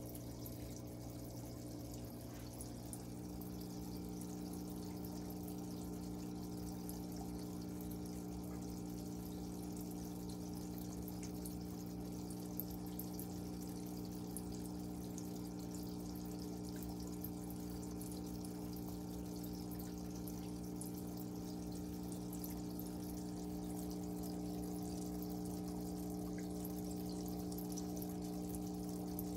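Air-driven sponge filters bubbling steadily in an aquarium tub, with fine crackling of bursting bubbles over the steady low hum of the air pump.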